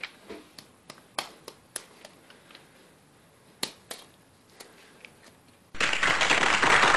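An egg tapped again and again against a person's head: about a dozen light, sharp, irregular taps of shell on scalp over some five seconds, until the raw egg cracks. Near the end, loud applause starts abruptly, an added sound effect.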